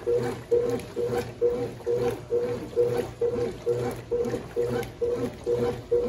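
Brastemp Baby Mondial BLK20 top-loading washing machine (1992) in its wash agitation: the agitator turns back and forth about twice a second in a steady rhythm, churning towels through sudsy water.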